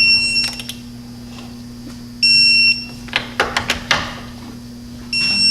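Electronic beeper of a digital torque wrench sounding three short high beeps, each about half a second long, the signal that the strut bolt has reached its set torque of 96 foot-pounds. Scattered tool clicks come between the second and third beeps.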